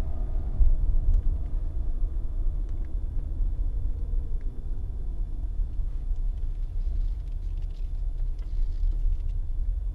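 Inside the cabin of a Mercedes-Benz W124 300E-24 on the move: a steady low rumble of the engine and road, with a few light clicks.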